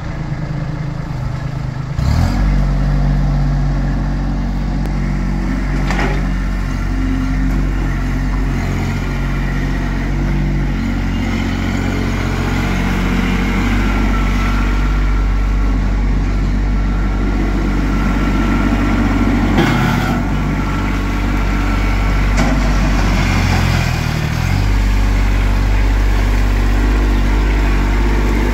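Kubota compact tractor's diesel engine running steadily, its level stepping up about two seconds in, with a brief drop and recovery in engine speed near the end. A few short sharp knocks are heard over the engine.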